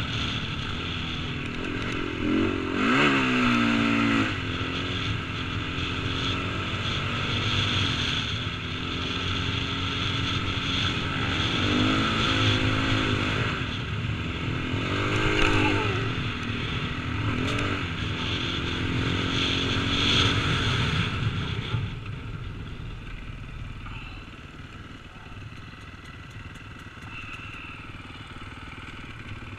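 KTM 450 single-cylinder four-stroke dirt bike engine, heard from a helmet-mounted camera, revving up and down again and again as the bike is ridden over sand. For the last several seconds it falls to a lower, quieter note.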